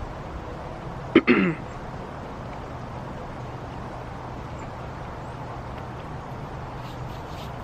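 A dog barks once, short and sharp, falling in pitch, about a second in, over steady outdoor background noise. A faint low steady hum follows from about three seconds in.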